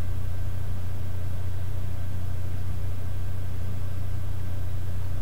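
Steady low hum that does not change, with no other sound.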